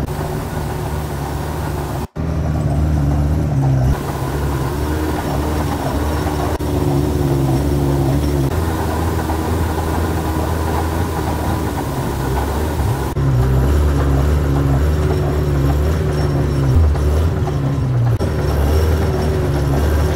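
An engine running steadily with a low rumble. The sound changes abruptly every few seconds and drops out briefly about two seconds in.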